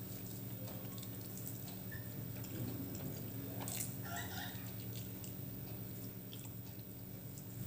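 Soft, wet eating sounds of rice and egg curry being mixed and eaten by hand, with small squishes and light clicks, over a steady low hum.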